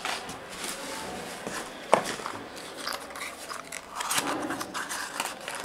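Small plastic component bags and packaging rustling and crinkling as they are handled, with one sharp click about two seconds in.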